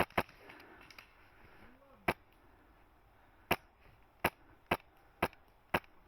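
Airsoft gun firing single shots, about seven sharp cracks spaced irregularly and then about two a second near the end.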